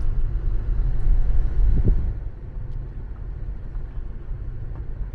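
Low rumble of a car driving slowly over a gravel road, heard from inside the cabin. It eases off about two seconds in and then runs steadily.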